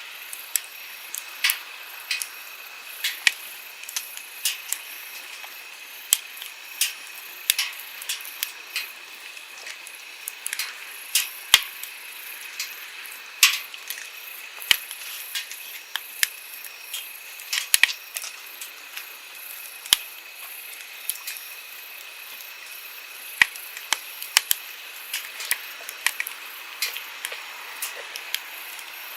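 Wood campfire crackling, with irregular sharp pops and snaps several times a second, over the steady rush of a flowing stream.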